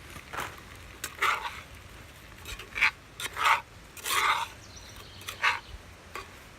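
A utensil stirring sliced apples, butter and sugar in a pan, in short irregular scrapes.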